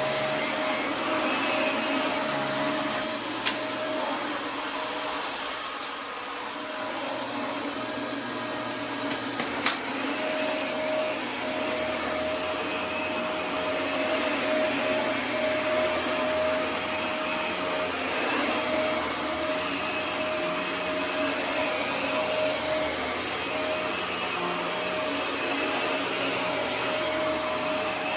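Dyson DC24 upright ball vacuum cleaner running steadily: a motor hum with a steady high-pitched whine over it, and one sharp click about ten seconds in.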